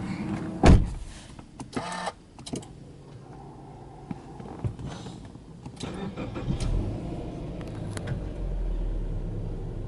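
A car door shuts with a loud thump about a second in, followed by a few clicks. Later the starter cranks the Subaru Legacy 2.5GT's turbocharged 2.5-litre flat-four, and the engine catches, settling into a steady, low fast idle near the end.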